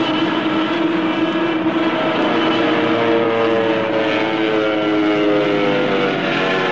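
Sound effect of a propeller plane's engine droning steadily, its pitch starting to fall about three seconds in, as of a light plane failing to climb.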